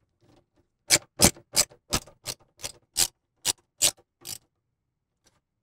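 Hand screwdriver driving a power-supply mounting screw into a PC case's back panel: about ten sharp clicks, roughly three a second, that stop a little past four seconds in.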